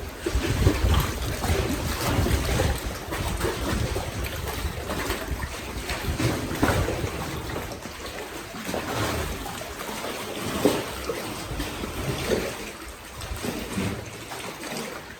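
Lake waves washing and splashing in uneven surges, with wind rumbling on the microphone, heaviest in the first few seconds.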